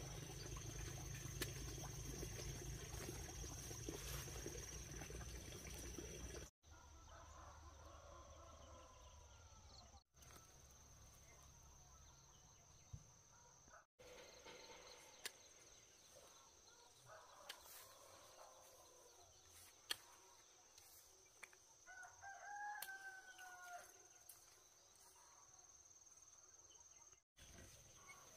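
A rooster crowing faintly, one drawn-out falling call late on, with a few fainter bird calls earlier. A steady high thin whine runs under it, and there is a low rumble in the first few seconds.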